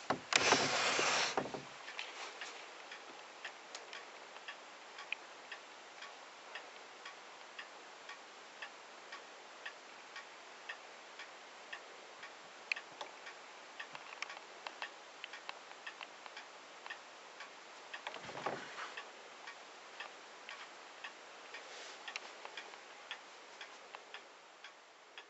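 Faint, regular ticking throughout. A loud burst of noise fills the first second and a half, and a shorter one comes about 18 seconds in.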